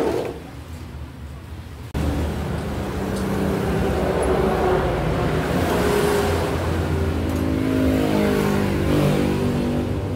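A small engine running steadily, starting abruptly about two seconds in, its pitch drifting up and down a little.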